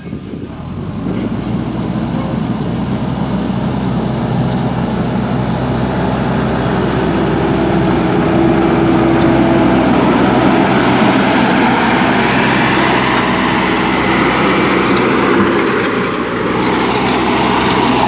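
JCB backhoe loader's diesel engine running under load as the machine pushes and levels gravel with its front bucket, getting louder over the first few seconds.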